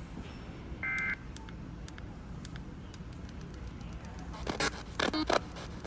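A short two-tone warbling data burst from the Emergency Alert System, the end-of-message code sent as the severe thunderstorm warning closes, heard over the radio about a second in. Then a steady low hiss with scattered clicks, and a few brief louder sounds near the end.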